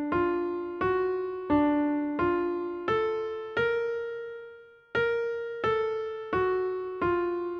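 Music: a slow melody of single electric-piano notes, each struck and fading away, about ten notes with a brief pause in the middle.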